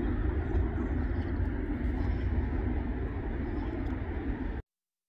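Steady outdoor background rumble, deep and even, that cuts off abruptly about four and a half seconds in.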